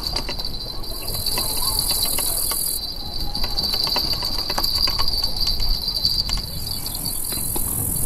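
Steady high-pitched insect buzz, with a higher hiss that drops out about three seconds in and returns near the end. Over it, a spinning reel being cranked to wind in line gives off irregular light ticks and clicks in the middle seconds.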